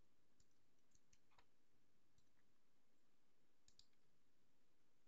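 Near silence with a few faint, scattered clicks from a computer mouse and keyboard being used.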